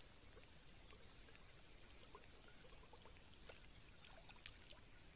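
Near silence: faint swamp ambience with a steady high-pitched whine and a few faint scattered ticks.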